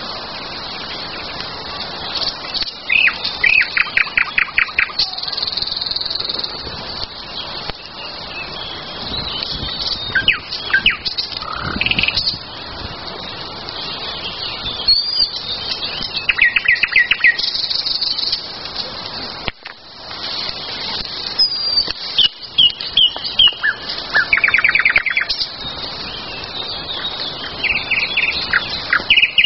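Several songbirds singing outdoors in spring: a chorus of chirps and whistles, with a rapid trill of even notes repeated every several seconds.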